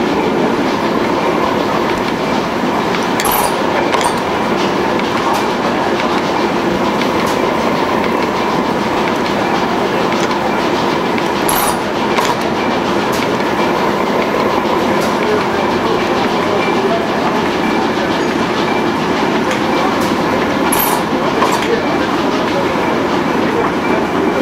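1887 Eickhoff four-stroke hot-bulb hit-and-miss engine (8 hp, kerosene) running slowly: a steady mechanical clatter from its valve gear and side shaft, with a pair of sharp clicks about every eight or nine seconds.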